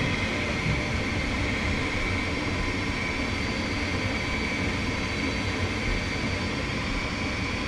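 Gas furnace running steadily: a continuous even rush of air and burner noise over a low hum. The burner stays lit, a sign that the cleaned flame sensor is now proving the flame.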